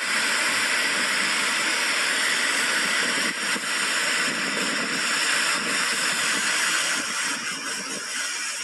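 Kosi River in flood: the steady rushing of fast, turbulent floodwater, which begins suddenly and eases slightly near the end.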